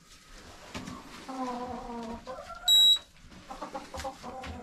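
Chickens calling: one drawn-out call about a second in, a short rising note after it, then quicker clucking near the end. About halfway through comes a single short, high electronic beep from the Ryobi infrared temperature gun as it takes a reading, the loudest sound.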